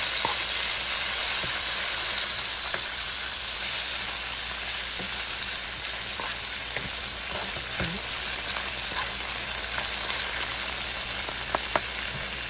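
Sliced onions and bell peppers sizzling in hot oil in a frying pan, stirred now and then with a wooden spatula that gives faint scattered scrapes and ticks. The sizzle eases slightly about two seconds in, as the heat is turned down.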